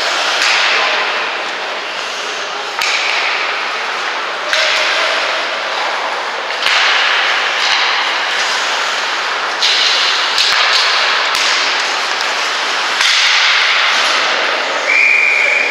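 Ice hockey rink sounds: skate blades scraping on the ice in repeated hissing strokes that start suddenly every second or two, with sharp clacks of sticks and puck. A short steady high tone comes near the end.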